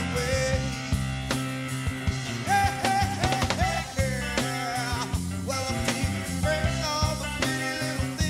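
Full-band rock song with a steady drum beat, bass and electric guitars, and a pitched lead line weaving over them.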